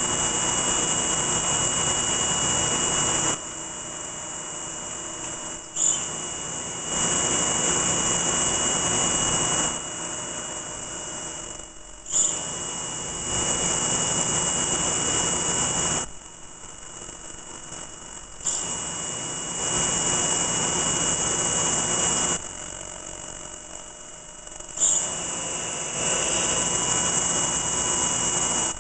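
F.P.T. Ronin boring mill's multi-axis head drilling dowel holes with a through-coolant drill, run at half speed and feed for the hard material. A loud hiss of coolant spray and a steady high whine swell for three or four seconds at a time and drop back between, about every six seconds, with a sharp click at several of the changes.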